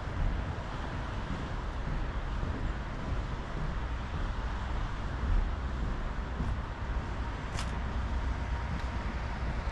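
Steady outdoor road-traffic noise, a continuous rumbling hiss without words, with a few faint sharp ticks in the second half and one clearer tick about three-quarters of the way through.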